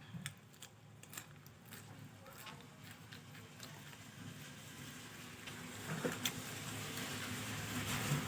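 Eating fried rice: scattered light clicks of a spoon against the food container over the first few seconds and once more later, with soft eating and mouth noises and a faint steady hum underneath.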